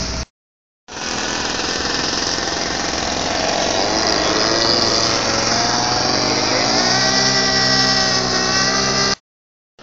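20cc engine of a radio-controlled model Cessna 182 running at speed in a low pass, its pitch dropping as the plane flies by. The sound breaks off briefly just after the start and again near the end.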